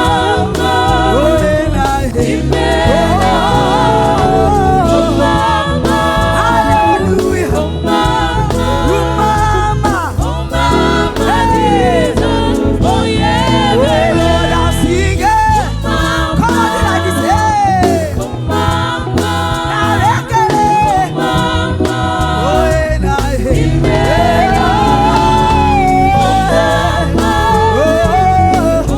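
Live gospel praise music: singers performing over a band with a steady beat and heavy bass.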